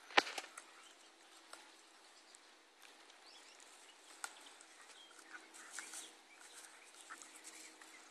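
A sharp knock about a quarter second in, then faint rustling and small clicks as an Alaskan husky puppy lying on its back in grass chews and bites at a thin stick.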